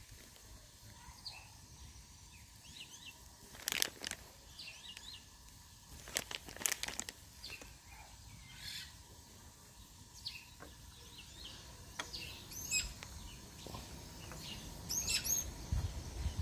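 Small birds chirping in the background, with sharp knocks about 4 and 6–7 seconds in. Near the end, a clay lid is set onto an earthenware pot.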